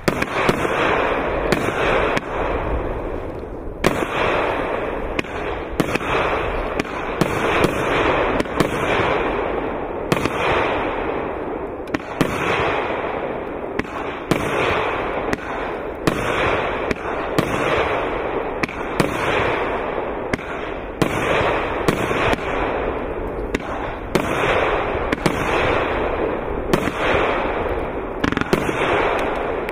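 A 25-shot consumer firework cake firing its shots one after another. There are sharp bangs about once a second over a continuous rushing noise.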